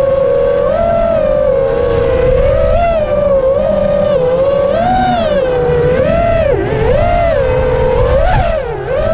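FPV freestyle quadcopter's electric motors whining. The pitch swings up and down about once a second as the throttle is worked, with a couple of sharp drops near the end.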